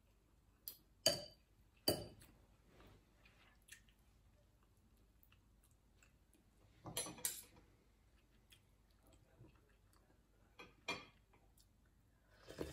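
A metal fork and spoon clinking and scraping against a glass salad bowl as salad is tossed: about five sharp clinks spread out, with quiet between.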